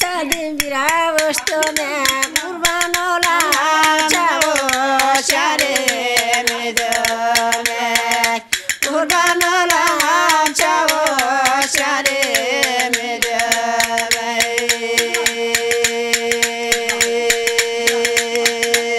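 A woman singing a Turkish folk song (türkü) unaccompanied except for rapid clicking taps on a tea saucer played as a percussion instrument. The voice wavers through ornamented phrases, breaks off briefly about eight seconds in, then holds long sustained notes to the end.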